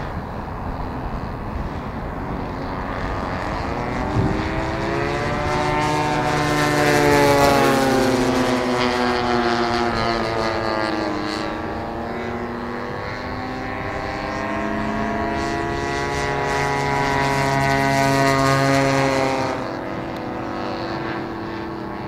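Propeller-driven radio-control model aircraft engine running in flight, its pitch bending as the model makes a pass. It swells twice, about a third of the way in and again near the end, then falls away suddenly.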